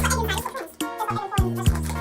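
Music with a deep bass line and a kick-drum beat.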